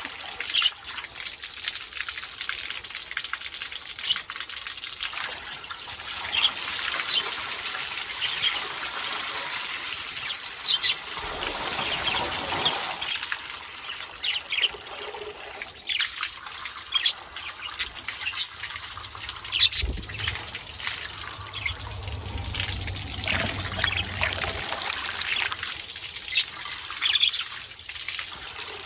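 Water trickling and splashing as pet budgerigars and lovebirds bathe, with wings flapping and short chirps throughout.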